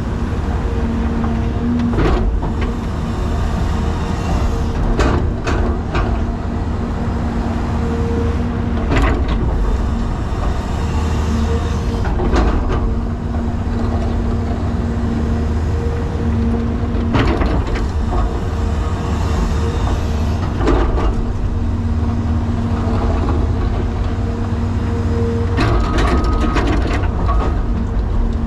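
Caterpillar 336 excavator working: the diesel engine runs steadily with a low rumble and a humming tone that comes and goes, and sharp knocks sound every few seconds as it digs and throws dirt.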